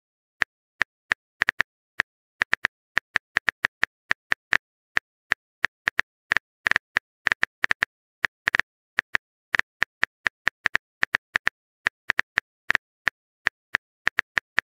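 Smartphone keyboard typing sound effect: quick, irregular key taps, about four a second.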